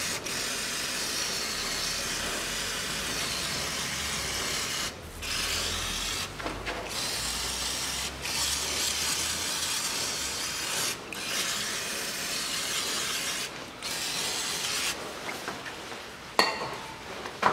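Aerosol carburettor cleaner hissing from the can in long bursts with several brief breaks, sprayed onto a manual gearbox casing to wash off gear-oil drips. The spraying stops near the end, followed by two light knocks.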